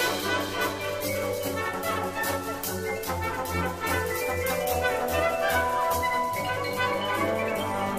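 Wind band and percussion ensemble playing: held brass and woodwind chords over quick, regular percussion strokes and a pulsing low bass line.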